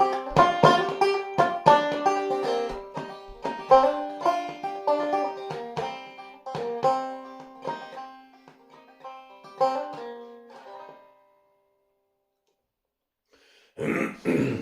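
Clawhammer banjo in double C tuning playing the closing instrumental phrase, the picked notes thinning out and ringing off to silence about eleven seconds in. A couple of dull knocks follow near the end.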